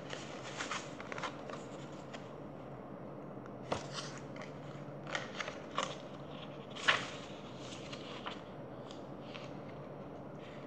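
Paper pages of a paperback picture book rustling and crackling as the book is handled, closed and reopened. The sound comes as a scattered series of short crackles, the sharpest about seven seconds in, over a faint steady hum.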